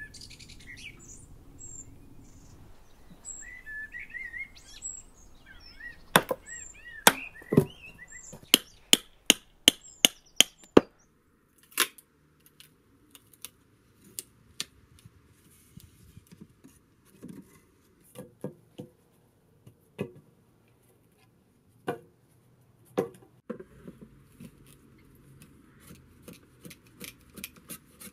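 Birds chirping, then a quick run of sharp, loud knocks about two a second as a hand tool chops into green walnut wood, followed by scattered single knocks. Near the end, a drawknife shaving the wood on a shaving horse: a soft rasp with light ticks.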